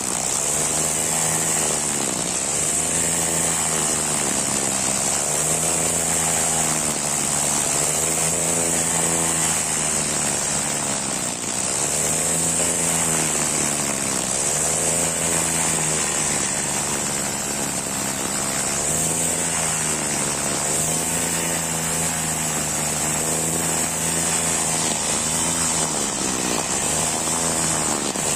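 Honda four-stroke backpack brush cutter running with nylon trimmer line, cutting grass: the engine note sags and recovers every couple of seconds as the spinning line bites into the grass, over a steady high whine.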